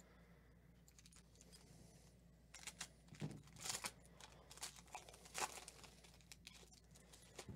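Foil wrapper of a 2012 Panini Cooperstown baseball card pack being torn open and crinkled. A quick run of crackles starts about two and a half seconds in, then thins out into a few scattered crinkles.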